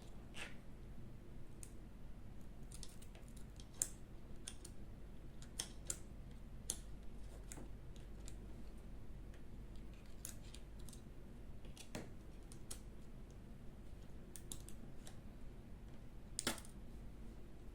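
Scattered light clicks and taps of small plastic and metal phone parts being handled and pressed into place during smartphone reassembly, irregular and a few seconds apart, over a faint steady low hum.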